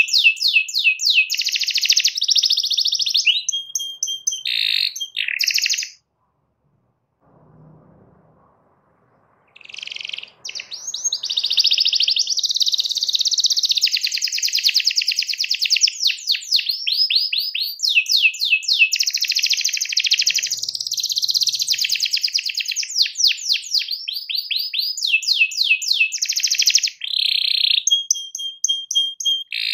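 Domestic canary in full song: long runs of rapid repeated notes and rolling trills. The song stops for about three seconds, six seconds in, then starts again.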